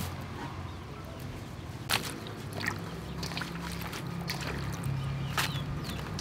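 Hands swishing sesbania flowers around in water in a stainless steel bowl: soft splashing and trickling, with a couple of sharp taps.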